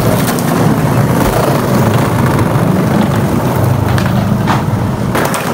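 Skateboard wheels rolling over tiled paving, a steady low rumble, with a couple of sharp clacks near the end.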